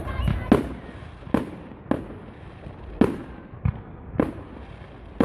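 Display fireworks going off: a string of sharp bangs, about seven in five seconds at uneven intervals, each trailing off in a short echo.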